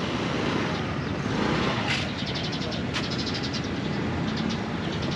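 Steady outdoor background noise of traffic with faint distant voices, a couple of sharp ticks and a brief fast high chattering about two seconds in.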